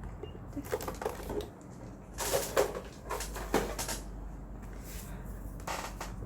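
Handling noises: a cluster of short rustling, scraping strokes about two to four seconds in and another just before the end, over a steady low hum.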